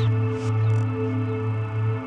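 Ambient electronic music played live on modular synthesizers: a steady deep bass drone held under several sustained higher tones.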